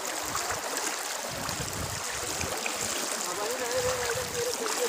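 Floodwater rushing steadily as a dense hiss. A wavering tone comes in about three and a half seconds in.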